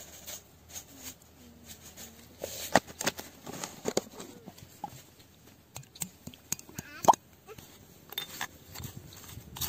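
Scattered clicks and knocks of plastic jars, lids and a metal spoon handled against a stone mortar as seasonings are added and stirred in, the sharpest knock about seven seconds in.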